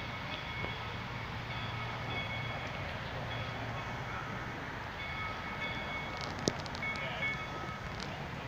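Steam locomotive running down the line, a steady rumble and hiss, with one sharp knock about six and a half seconds in.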